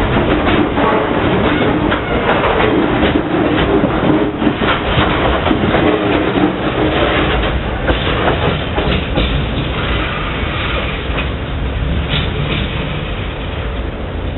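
Wheels of a train of Koki container flat wagons clattering over rail joints as they roll past close by, over a steady rumble. The clatter thins out and fades after the last wagon passes, about two-thirds of the way through, as the train moves off.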